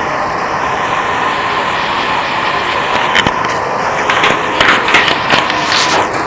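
Steady hiss of background noise, with a few faint clicks in the second half.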